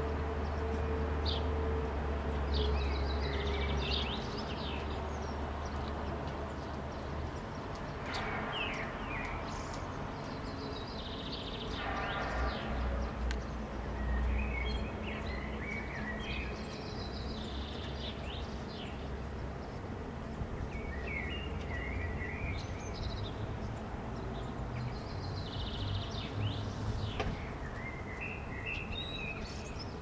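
Common blackbird song in short phrases, mixed with chaffinch song and house sparrow calls, over a steady low rumble of construction machinery. The rumble eases after about seven seconds, and a couple of sharp construction knocks break in, one about eight seconds in and one near the end.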